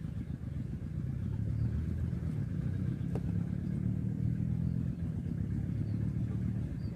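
Low, steady rumble of an engine running, a little louder from about a second in.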